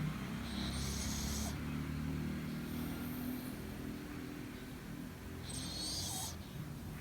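Yorkshire terrier snoring in its sleep: a low snoring rumble with two breathy hisses, about five seconds apart.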